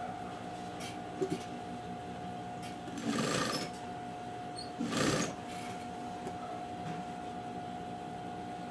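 Electric sewing machine running steadily, stitching strips of thick knit fabric, with two short bursts of noise about three and five seconds in.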